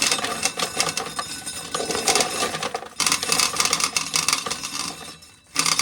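Dried corn being shelled off the cob: a dense run of kernels clicking and rattling as they break loose and fall. It dies away briefly near the end, then starts again.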